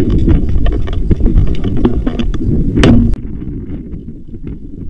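Heavy rumbling wind and handling noise on a body-worn action camera's microphone, with scattered short sharp clicks. About three seconds in, the sound drops and turns duller.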